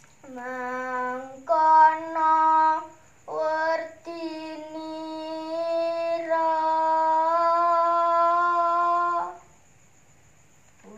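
A girl sings a Javanese macapat verse unaccompanied, drawing out long held, gently ornamented notes, and stops about nine seconds in.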